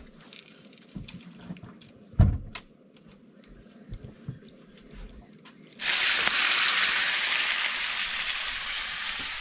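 A few faint knocks and clicks, then, about six seconds in, a steady sizzle starts suddenly: bacon and eggs frying in a hot pan.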